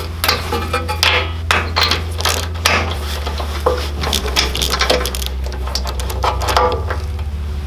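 Ratchet wrench with a socket extension clicking in quick runs as it loosens and backs out the spark plug of a Predator small engine, with small metal knocks between the runs.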